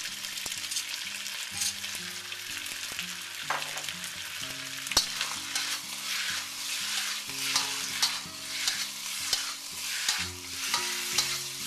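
Boneless chicken stir-frying in hot oil with fermented black beans and a ginger-garlic mixture: a steady sizzle with repeated stirring strokes, more frequent in the second half, about one or two a second.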